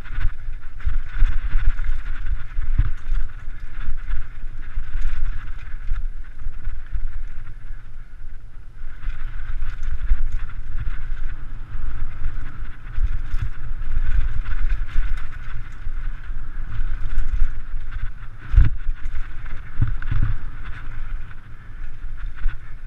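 Mountain bike riding fast down a rough dirt-and-rock trail, picked up by a GoPro mounted on the bike: a heavy low rumble of wind and trail vibration with constant rattling and tyre crunch, and a couple of hard knocks from bumps near the end.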